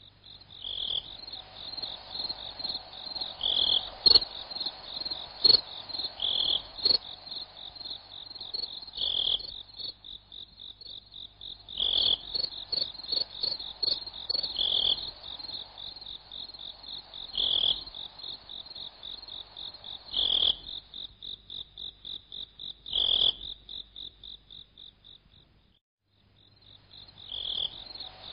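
Calling insects: a high, rapid pulsing trill with a louder call repeating about every three seconds. It stops for a couple of seconds near the end, then starts again. Scattered faint clicks are heard over it.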